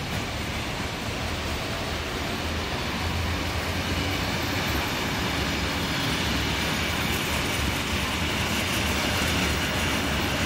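Wagons of a freight aggregate train rolling steadily past, with the continuous noise of steel wheels running on the rails. It grows slightly louder a few seconds in.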